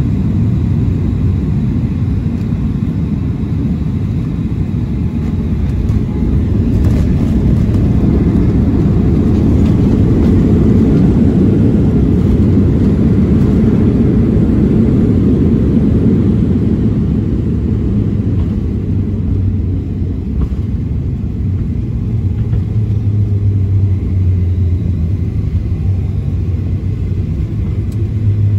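Boeing 737-700 landing, heard from the cabin over the wing: a steady rumble of its CFM56 engines and airflow that swells about seven seconds in as the jet touches down on a wet runway, stays loudest for several seconds through the rollout, then eases off as the aircraft slows.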